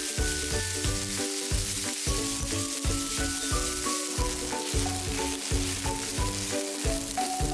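Diced red onions sizzling in hot oil in a frying pan as they are stirred with a silicone spatula. Background music with held notes and a steady low beat plays under the sizzle.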